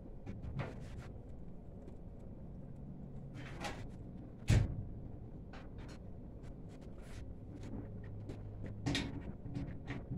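Quiet room with a low steady hum, small scattered clicks and one sharp knock a little before halfway, and a softer bump near the end.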